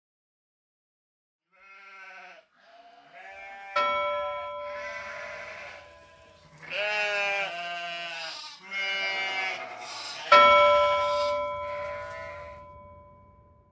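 Animals bleating in a string of quavering calls, with a bell struck twice, about four seconds in and again near ten seconds, each stroke ringing on and fading over a few seconds.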